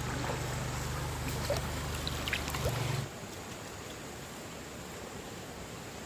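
Stream water running steadily. For the first half a steady low hum and a few faint chirps lie over it; these cut off suddenly about halfway through, leaving only the water.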